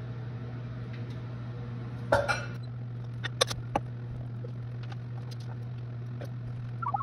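Kitchenware being handled on a counter: a short clatter about two seconds in, then a few sharp clinks, over a steady low hum.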